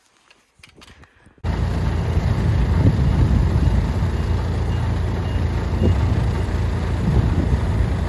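Wheeled asphalt paver's diesel engine running steadily with a loud low rumble. It cuts in suddenly about a second and a half in, after a quiet start.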